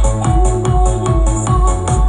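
Electronic dance music with a heavy, steady bass beat, a held synth melody and crisp high hats, played through a stage loudspeaker system with double subwoofers under test.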